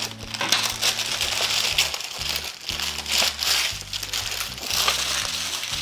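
Brown kraft-paper packaging rustling and crinkling as it is unwrapped by hand from aluminium cabinet-door profiles. Background music with a steady bass line plays underneath.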